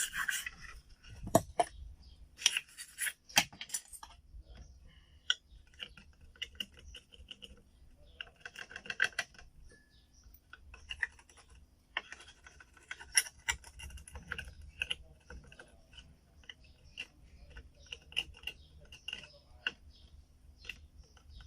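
Small hand tool scraping and clicking against a computer motherboard in short, irregular strokes as oxidation is cleaned off around the graphics-card socket.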